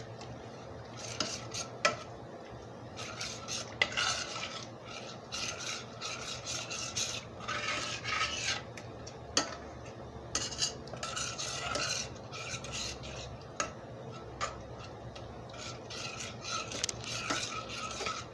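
Slotted metal spoon stirring and scraping flour-and-water pan gravy in a stainless steel skillet: repeated irregular scraping strokes with a few sharp clinks of metal on the pan.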